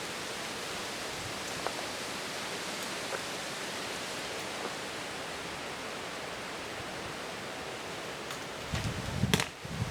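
Steady outdoor hiss of wind. Near the end, low wind buffeting hits the microphone, together with one sharp knock.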